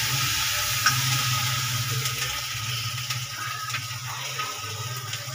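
Onion-and-tomato masala sizzling in oil in a kadhai, a steady frying hiss with a few light clicks of a ladle stirring against the pan, growing a little quieter toward the end.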